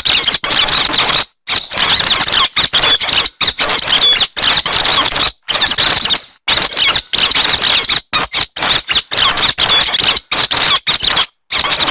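Recording of the hec xoan bird's song, played as a trapping lure: dense, fast chattering with many quick high squeaky glides. It is broken several times by short, sudden gaps of silence.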